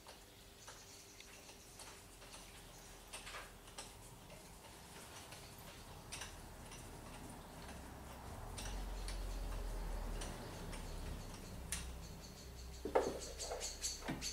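Scattered light clicks and taps of hand tools and metal parts being handled around an engine, with a low rumble from about eight to eleven seconds in. Near the end comes a quick run of sharper clicks and knocks.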